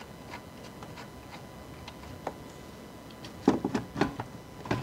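Hand tools working on an alternator's mounting bolt: a few light metal clicks, then a cluster of louder metal clunks and knocks from about three and a half seconds in as the alternator is worked free of its bracket.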